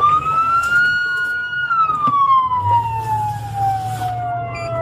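Police car siren in wail mode, heard from inside the patrol car's cabin. It rises quickly at the start, holds about a second in, then falls slowly through a long sweep. Engine and road rumble from the moving cruiser sit underneath.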